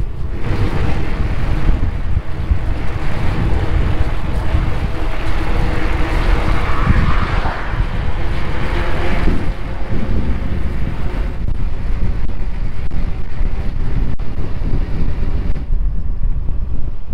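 A vehicle travelling along a road: steady engine and road rumble, with wind buffeting the microphone.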